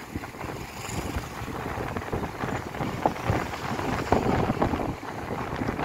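Wind blowing over the microphone in uneven gusts.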